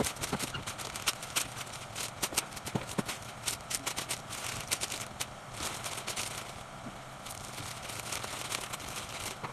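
Sheets of bouquet wrapping paper rustling and crackling as they are folded and gathered around the flower stems, with dense crinkles in the first half that thin out later.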